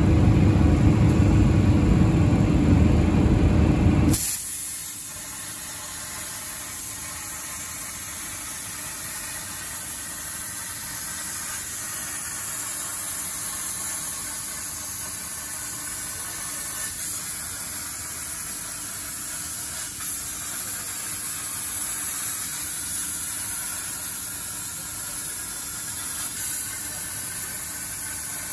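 CNC plasma torch cutting 4 mm Corten steel plate: a steady hiss of the cutting arc with a high, sizzling edge. A louder low rumble fills the first four seconds and stops abruptly.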